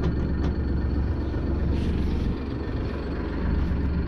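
Fishing boat's engine running, a steady low rumble that eases a little about two seconds in.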